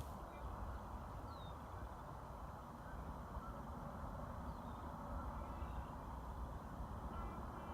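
Quiet outdoor background with a steady low rumble and a few faint, short bird chirps scattered through it.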